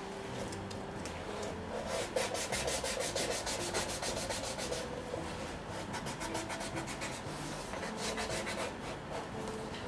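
Sole edge of a Goodyear-welted shoe being sanded by hand: quick, even rubbing strokes of abrasive on the leather, busiest from about two to four seconds in. The sole edge is being dressed flush after the leather sole has been replaced.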